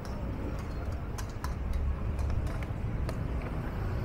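Busy city street ambience: a steady low traffic rumble with scattered sharp clicks and ticks.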